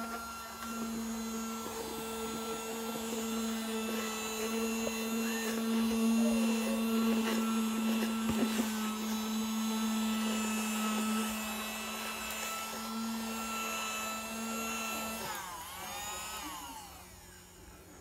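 Flea Market mini desktop vacuum cleaner, running on AAA batteries, with its small motor giving a steady hum at an even pitch. A few clicks come about halfway through, and the motor stops about three seconds before the end.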